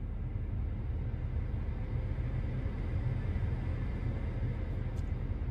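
Steady low rumble with a haze of blowing air inside a pickup cab: the climate-control fan, with its speed being turned up and down, over a low vehicle rumble. The air noise swells a little in the middle and eases off toward the end.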